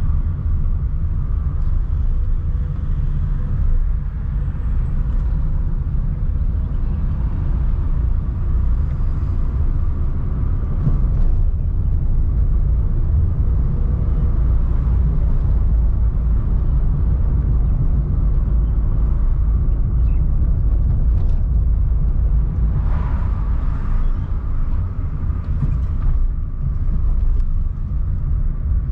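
Car driving through town streets: a steady low engine and road-tyre rumble.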